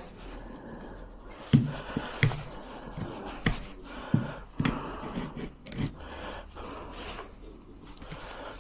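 Irregular sharp clicks and knocks of hand tools and metal parts being handled while working on a door lock, clustered in the first two-thirds and thinning out near the end.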